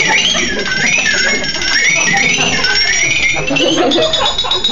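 A high warbling tone that wavers up and down in pitch, over a murmur of lower sound.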